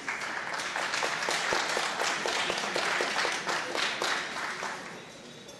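Audience applauding, dense clapping that starts at once and dies away near the end.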